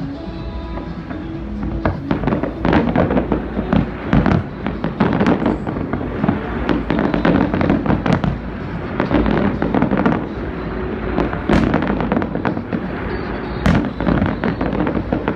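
Fireworks display: a rapid string of shell bursts with dense crackling throughout. Two sharp reports stand out about two-thirds of the way in.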